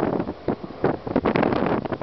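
Wind buffeting the microphone in uneven gusts over the running noise of a diesel shunting locomotive rolling slowly off a railway turntable.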